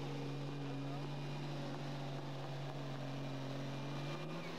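Dodge Ram diesel pickup's engine running at high, steady revs under full load as it drags a truck-pull sled, its pitch lifting slightly near the end.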